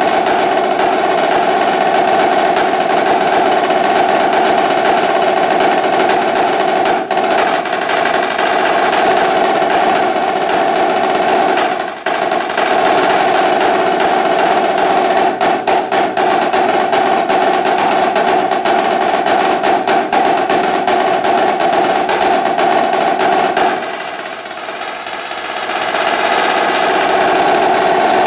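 Yamaha marching snare drum played solo with sticks: dense rudimental rolls and figures, with the head's high ringing pitch. There is a brief break about twelve seconds in, and the playing turns softer around twenty-four seconds before building back up.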